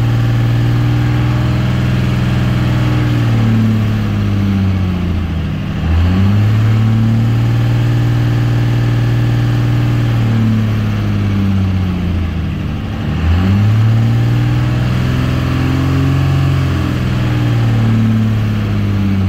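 Cummins 12-valve inline-six diesel held at about 2,000 RPM to break in a new 188/220 flat-tappet camshaft, running loud and steady, heard from the cab. Its speed sags briefly and recovers twice, about six and thirteen seconds in.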